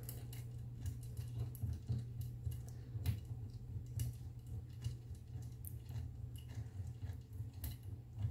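Fingers turning a small screw into the side of a Two Trees TTS-10 Pro laser module to fix it to its carriage: faint, scattered clicks and taps, over a steady low hum.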